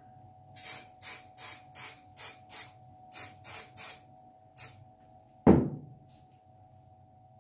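Aerosol spray can giving about ten short hissing bursts, roughly three a second, coating a sea-moss model tree. About five and a half seconds in, a single loud knock follows as the can is set down on the table.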